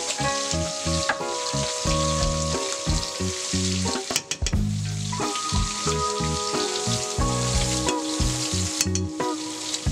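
Green beans sizzling in a hot frying pan, a steady hiss, with background music underneath.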